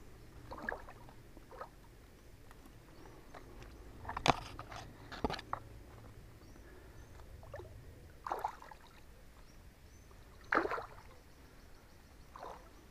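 Shallow water splashing and sloshing in a few short bursts as hands move through it, with two sharp knocks about four and five seconds in.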